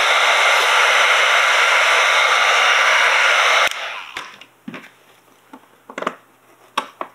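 Electric heat gun blowing steadily to warm a vinyl decal, switched off suddenly about three and a half seconds in. A few light knocks and rubbing sounds follow as it is set down and the decal is handled.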